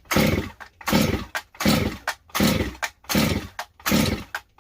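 STIHL MS200T two-stroke chainsaw being pull-started: about six quick yanks of the recoil starter cord in a steady rhythm, each a short whirring crank of the engine, and it never fires. The owner suspects he has flooded it.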